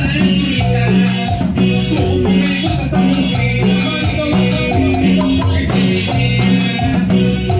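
Cumbia band playing live: keyboards, bass and drums with a steady dance beat.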